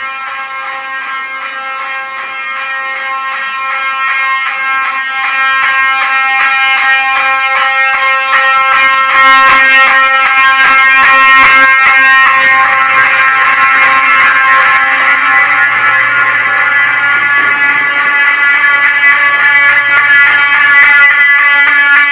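Building fire alarm horns sounding during a system test: a loud, harsh pitched tone in rapid repeated pulses, growing louder over the first ten seconds and then holding steady.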